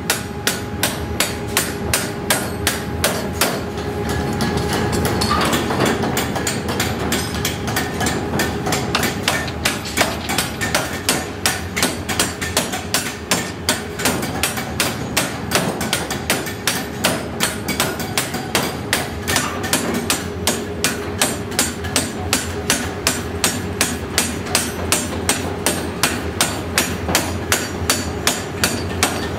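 Power hammer striking red-hot steel for a truck axle in steady, rapid blows, about two to three a second, over a steady machine hum.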